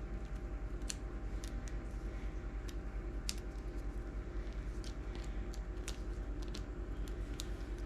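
Small pieces of a miniature jigsaw puzzle being handled and pressed into place: scattered, irregular light clicks and taps, over a steady low hum.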